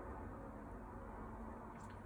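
Quiet room tone: a steady low hum, with one faint click near the end.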